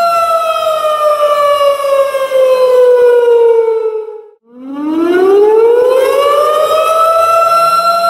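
Tornado warning siren sounding a steady wail. The pitch falls and fades until it nearly cuts out about four seconds in, then winds back up to full pitch and holds.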